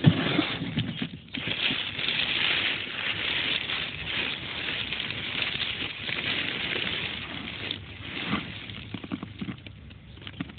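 A hand rustling and digging through a plastic tray of dry black soldier fly pupae and newspaper, a dense crackly rustle with a few knocks near the start.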